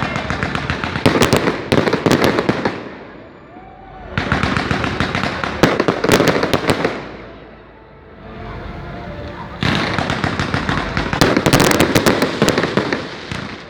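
Firecrackers going off in rapid crackling runs of pops, three runs of a few seconds each with short quieter gaps between.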